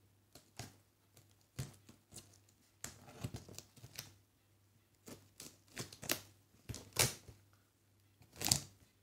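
Hands opening a parcel: irregular clicks, taps and short rustles of the packaging being handled and pulled apart, the loudest just before the end.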